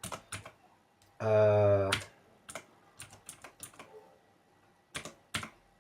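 Blue-switch mechanical keyboard keys pressed one after another, each press a sharp click, in scattered runs. About a second in comes a short, held, wordless hum from a person's voice, lasting under a second.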